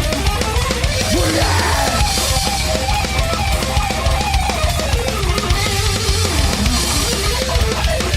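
Thrash metal song playing: rapid drumming under a distorted electric guitar riff.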